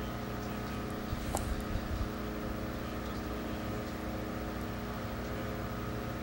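Steady background hum of a running motor or machine, with a few light knocks and one sharp click between one and two seconds in as metal parts are handled.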